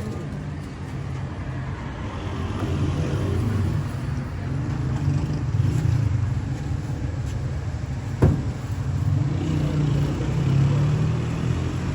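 Low engine rumble of motor vehicles, swelling and easing, with one sharp click about eight seconds in.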